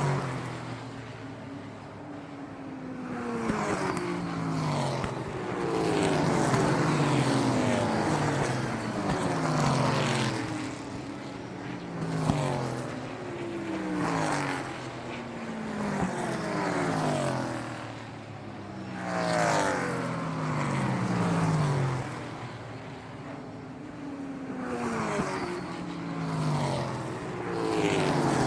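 Car engines, the engine note dropping in pitch again and again every second or two, with the loudness swelling and fading.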